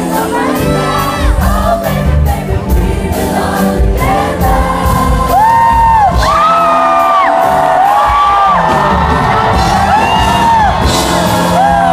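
Live pop concert heard from the audience: a female singer holding long sung notes over band accompaniment, with crowd noise underneath. The bass-heavy backing thins about four seconds in, leaving the held vocal lines on top.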